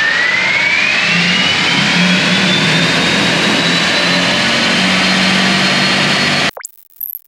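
Dual-motor electric 2022 Ford F-150 Lightning running on a four-wheel roller dyno: a high drivetrain whine climbs steadily in pitch as the wheels and rollers speed up, over a loud rushing of tyres on the rollers. It cuts off suddenly near the end.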